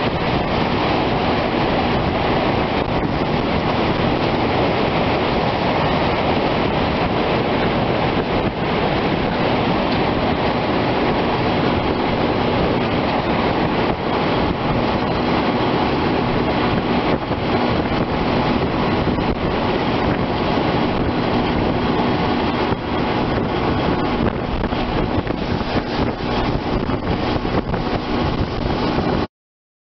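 Steady roar of a large tornado mixed with strong wind buffeting the microphone; it cuts off suddenly near the end.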